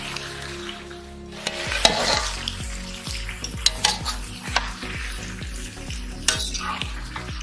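Chicken frying and sizzling in hot oil in a pan while it is stirred, with sharp scrapes and clicks of the spatula against the metal.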